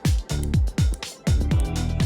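Electronic dance music with a steady four-on-the-floor kick drum, bass line and hi-hats.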